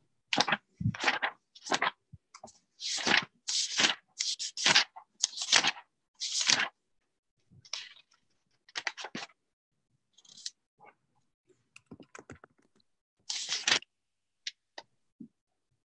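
Irregular bursts of scraping and rustling noise, most of them in the first seven seconds and sparser after: handling noise picked up by an iPhone's microphone on a Zoom call, with dead silence between bursts.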